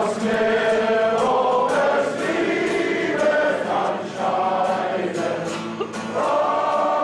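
A choir singing, with held notes that change about every second.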